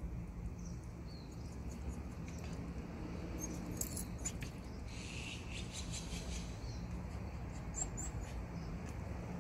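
Faint outdoor ambience: a steady low hum with scattered short high chirps and squeaks, and a brief hiss-like noise about five seconds in.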